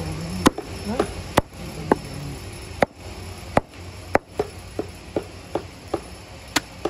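A butcher's cleaver chopping buffalo meat on a wooden log chopping block: about a dozen sharp strikes at an uneven pace.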